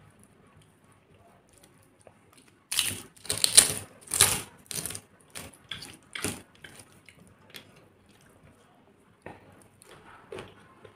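Close-up crunching of a crisp papad being bitten and chewed: a rapid run of loud, crackly crunches lasting about four seconds, then a few scattered fainter clicks.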